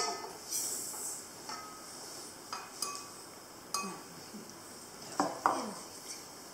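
Sugar tipped from a small bowl into a stainless steel stand-mixer bowl: a knock, a short hiss of pouring sugar, then several ringing taps of the bowl against the steel bowl and whisk. Two louder clinks of glass and crockery being handled near the end.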